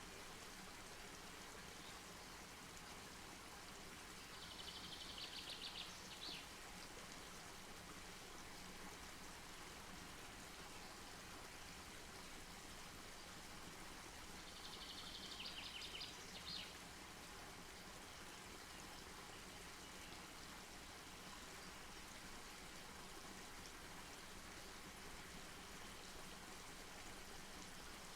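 Faint, steady outdoor background hiss. A bird gives a rapid, high trill twice, about four seconds in and again about fourteen seconds in, each trill closing with a short separate note.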